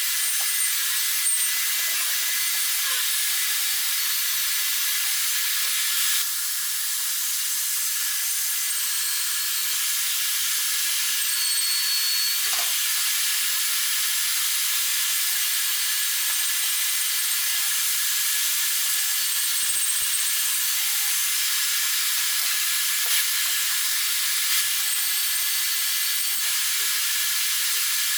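Steady sizzling hiss of MIG welding on steel, running without a break, dipping slightly about six seconds in.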